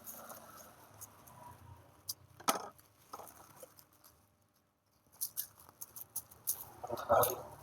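Scissors snipping through bubble wrap, with the plastic crinkling and rustling as it is handled. The crackling is soft and scattered, with a sharper crackle about two and a half seconds in and denser crinkling near the end.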